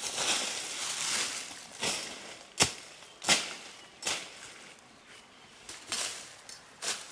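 Sharp strikes at irregular intervals, about six of them, loudest a little over two seconds in, with a rustle of leaves or grass in the first second or so: typical of blade work on wood or vegetation during camp building.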